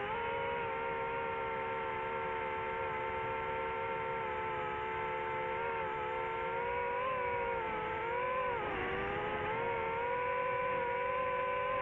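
Quadcopter drone's propellers whining at a steady pitch, several rotors at slightly different speeds. About eight and a half seconds in the pitch dips briefly and then comes back up as the motors change speed.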